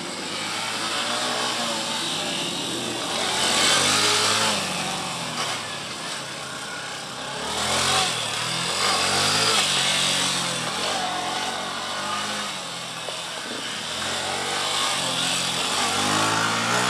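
A Yamaha FZ-S motorcycle's single-cylinder engine revs up and drops back over and over as it is ridden through tight turns. It surges louder about 4, 8 and 10 seconds in.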